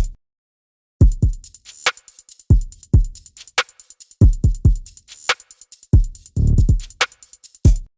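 Background music: a hip-hop style drum-machine beat of deep kick drums that fall in pitch, sharp snare hits and rapid hi-hat ticks. The music cuts out for under a second near the start, then comes back in.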